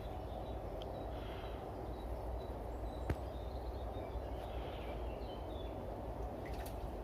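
Steady low background hum of the yard with a few faint, short, high bird chirps, and one sharp click about three seconds in.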